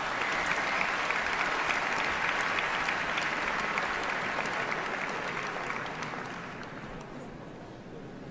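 Concert hall audience applauding, the applause dying away over the last few seconds.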